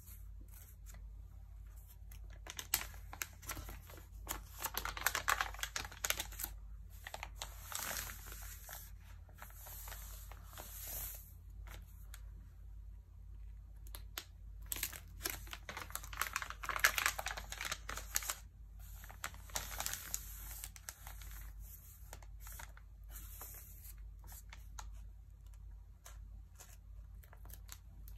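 Glossy magazine pages being handled and turned by hand: the paper crinkles and rustles in two long bouts, starting about 3 and 15 seconds in, with softer rubs and light taps of fingers on the paper in between.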